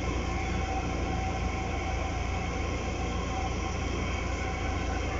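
Steady low rumble and hiss of room background noise, with no distinct events.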